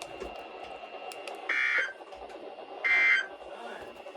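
EAS/SAME end-of-message code on a NOAA Weather Radio broadcast: short, harsh, buzzy digital data bursts repeated about a second apart, two within this stretch and a third starting as it ends. They signal the end of the weekly alarm test.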